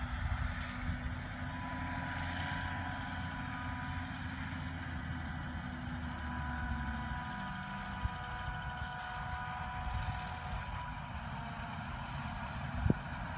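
A distant self-propelled forage harvester chopping corn for silage: a steady low rumble with a held whine of the machine, unchanging throughout. A single sharp click comes near the end.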